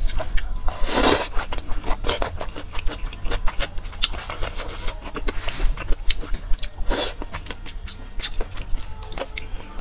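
Close-miked eating of glass noodles in spicy broth: wet chewing and lip-smacking clicks throughout, with a louder slurp about a second in and another about seven seconds in.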